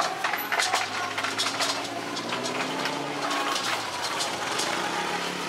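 Metal dough scraper chopping a sheet of cakwe dough into strips on a floured table: a quick irregular run of sharp knocks and taps, several a second.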